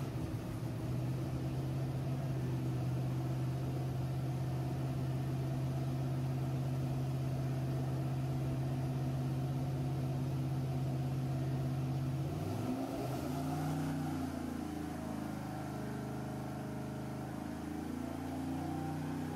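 Junkyard 4.8 L LS V8 (LR4) running on an engine dyno, exhausting through long-tube headers and straight-through mufflers. It holds one steady speed, then about twelve seconds in the note drops and turns unsteady as the engine comes down to a lower speed.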